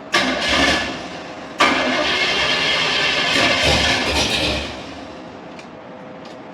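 Chevy C10 pickup's engine being cranked by its starter, a short crank and then a longer one of about three seconds, without starting: the carburetor's choke is left closed, which the owner blames for starving it of air.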